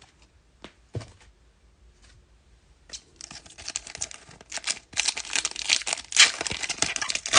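A few light taps, then from about three seconds in the crackly tearing and crinkling of a trading-card pack wrapper being ripped open.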